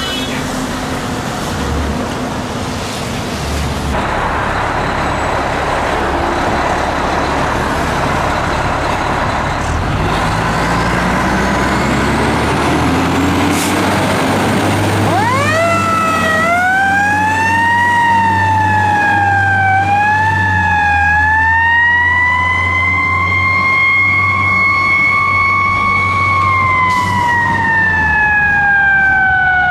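Tower ladder fire truck's diesel engine rumbling as it pulls away and accelerates. About halfway through, its siren winds up in quick rising steps and wails high, dipping and climbing a few times, then starts to fall slowly in pitch near the end.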